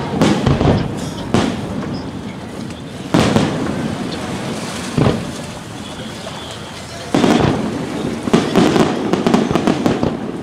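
Aerial firework shells bursting: a few separate booms spaced a second or two apart, then a dense run of quick bangs from about eight seconds in.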